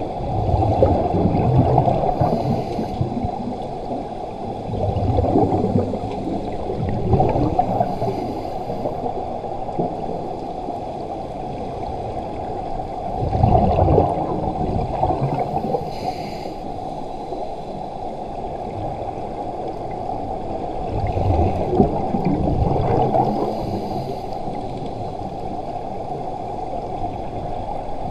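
Scuba divers' exhaled bubbles from their regulators, heard underwater through a camera housing: a muffled bubbling that surges every few seconds with each exhalation over a steady low wash.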